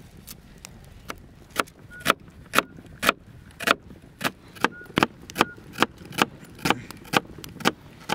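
Knife chopping on a cutting board, sharp strokes about two a second, a few with a short metallic ring.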